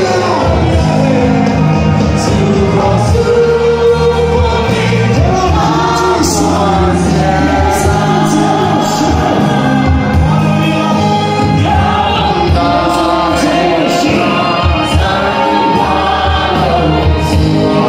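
Gospel worship music: many voices singing together over an amplified band with steady bass notes and percussion.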